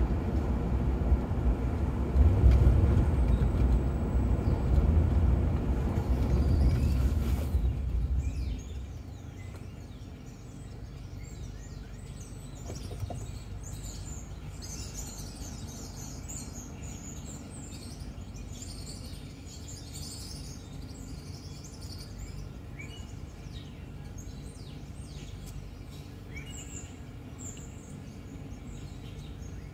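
A loud low traffic rumble that dies away about eight seconds in as the car comes to a stop. After that a quieter steady street hum remains, with small birds chirping.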